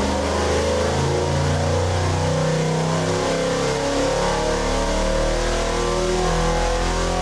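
Chevy 454 big-block V8 with port fuel injection running under load on an engine dynamometer, its revs climbing steadily through a power pull.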